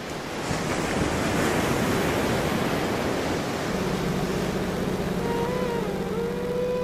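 Steady rushing of sea surf on a beach. A low steady drone comes in about halfway through, and a held flute-like note that bends in pitch enters near the end as music fades in.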